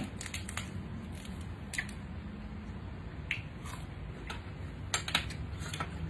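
Close-up chewing of a lettuce-wrapped mouthful of green papaya salad: scattered short crunches and wet mouth clicks at irregular intervals, with no words.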